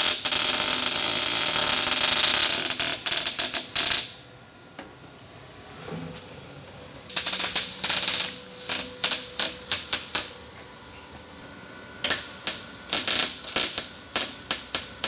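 Everlast MIG welder's arc crackling as an O2 sensor bung is welded onto an exhaust pipe, in three bursts a few seconds long with short pauses between. The first bursts run steadily before breaking into sputters, while the later ones come as rapid stuttering crackles.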